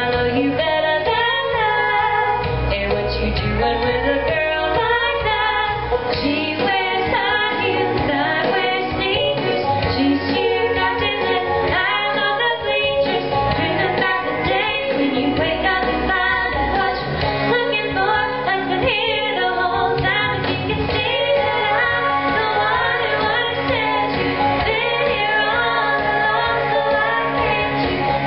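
A woman singing a country song with instrumental accompaniment, her voice carried through a headset microphone.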